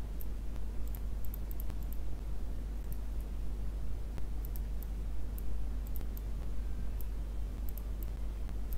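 Computer mouse clicking, single clicks and quick double clicks every second or so, over a steady low electrical hum.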